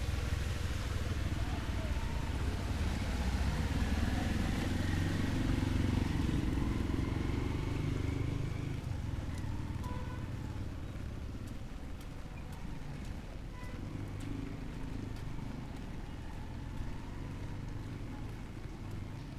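A motor vehicle passing on the street, its engine running loudest over the first half, then fading to a quieter background.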